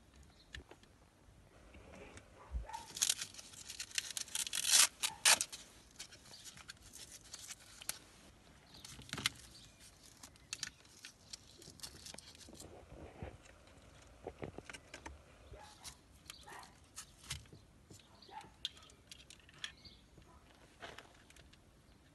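Hands handling a NiteSite Viper night-vision unit on an air rifle's scope: clicks, scrapes and rattles of plastic and metal parts, with a dense flurry of rustling and clicking about three to five seconds in, then scattered single clicks.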